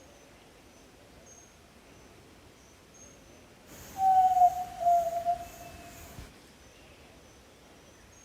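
Yellow-legged tinamou (jaó-do-sul) giving one low, clear whistled call about four seconds in, in two pulses that fall slightly in pitch. Faint high chirps of insects or small birds repeat underneath.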